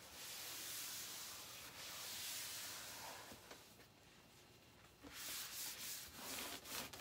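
A towel rubbing chalk paint dust off a plastic cutting mat: a steady hissing wipe that stops for about a second and a half midway, then resumes in short strokes.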